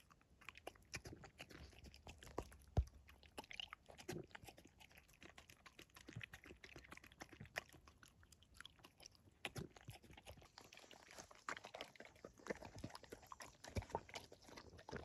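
A dog eating its food, with faint, irregular crunching and chewing.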